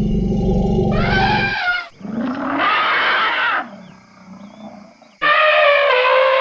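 Elephants calling in a string of cut-together recordings: a deep call, then high trumpeting calls that start and stop abruptly. A loud trumpet begins suddenly about five seconds in.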